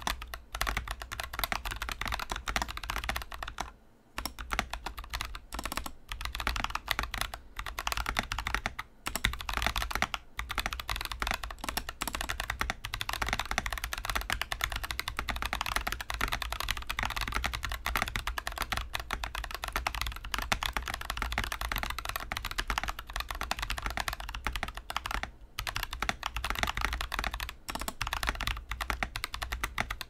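Steady, fast typing on an NK65 Entry Edition mechanical keyboard with lubed Gazzew Boba U4T 62g tactile switches and MT3 keycaps, recorded up close. The keystrokes come in a dense, even stream, with brief pauses about four seconds in and again around nine to ten seconds in.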